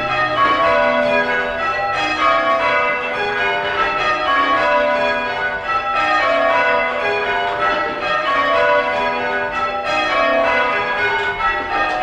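A ring of church bells swung full circle and rung in the English change-ringing style: bell strokes following one another in a steady, even rhythm, each ringing on into the next.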